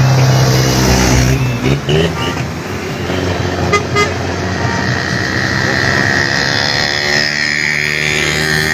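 Road traffic of a vehicle convoy: car engines running, loudest in the first second and a half, with a short horn toot about four seconds in.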